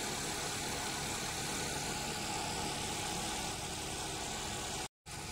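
Steady, unchanging machine drone with hiss, like a running motor, which drops out for a moment near the end.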